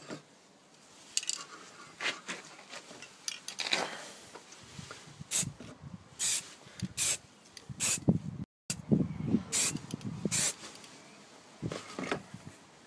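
Short bursts of aerosol spray paint hissing from a shaken rattle can, several quick sprays in the second half, mixed with light knocks and rustles of a plastic model part being turned in a cardboard box.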